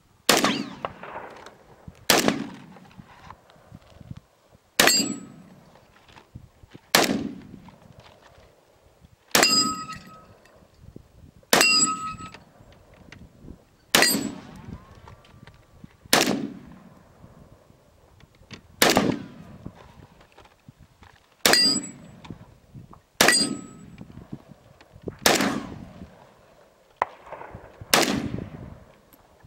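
Zastava ZPAP M70 semi-automatic AK-pattern rifle in 7.62x39mm firing single shots, thirteen of them about every two seconds, each followed by a trailing echo. Several shots carry a brief metallic ring.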